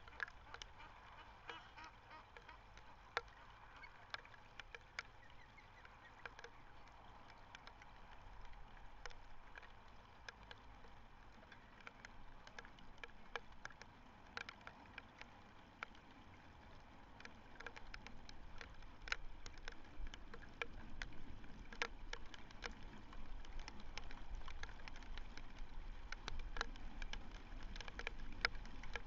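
Outdoor ambience from a nest microphone: wind rumbling on the microphone, growing stronger after about 18 s, with many scattered sharp clicks and faint distant bird calls.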